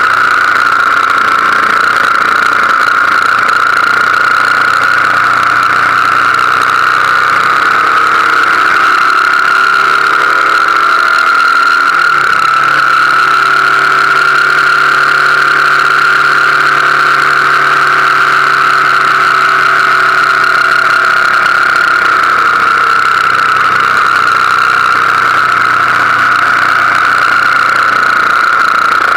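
BMW R1200GS Adventure boxer-twin motorcycle cruising at road speed: a steady engine hum under a constant rush of wind noise. The engine note shifts about twelve seconds in.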